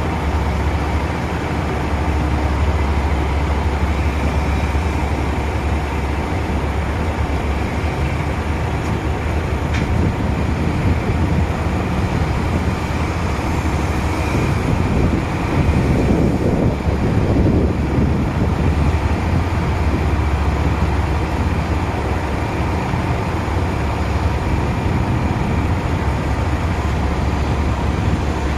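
Heavy diesel engines of a Cat 6030B mining excavator working beside a loaded Cat 777 haul truck, a steady deep rumble. It grows louder and rougher for a few seconds about halfway through.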